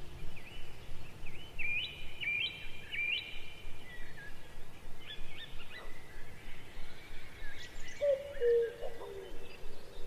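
Birdsong over a faint steady background hiss: high chirps and short glides rising and falling through the first half, then a lower two-note call, a short rise and a step down, repeating a few times near the end.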